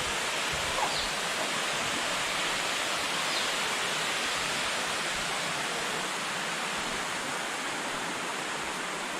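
Steady rushing of a waterfall and river rapids, a constant even roar of falling water.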